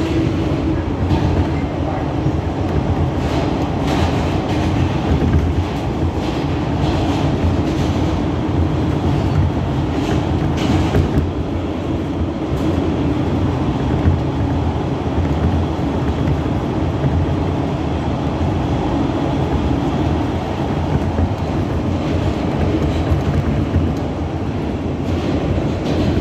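R160B subway train running at speed through a tunnel, heard from inside the car: a steady, loud rumble of wheels on rail, with sharp clicks from the track, most of them in the first dozen seconds.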